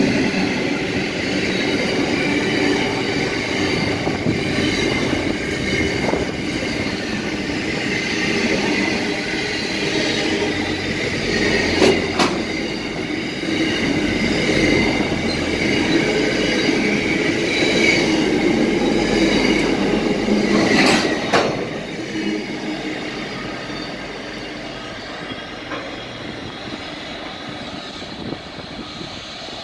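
Intermodal container freight train rolling past at close range: a steady rumble and clatter of wagon wheels on the rails, with high wheel squeal and two sharp knocks. It fades in the last third as the end of the train passes and draws away.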